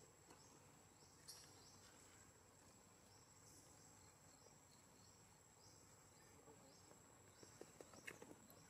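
Near silence with faint insects calling: a steady thin high whine and short high chirps repeating about every two-thirds of a second. A few light clicks near the end.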